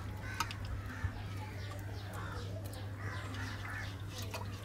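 Birds chirping and chickens clucking, with many short calls, over a steady low hum.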